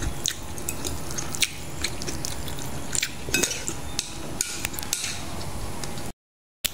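Close-up eating sounds: chewing and small wet mouth clicks, with fingers working rice and fried milkfish on a plate. These come as scattered small clicks over a steady low hum, and the sound cuts out briefly near the end.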